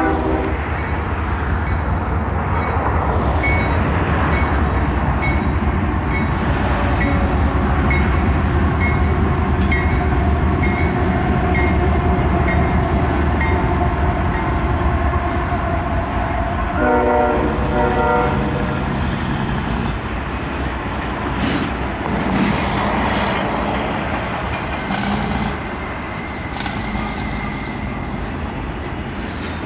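Diesel freight locomotives passing with a steady low engine drone, a short train horn blast about two-thirds of the way in, then freight cars rolling by with wheel clatter and scattered clanks as the engine sound fades.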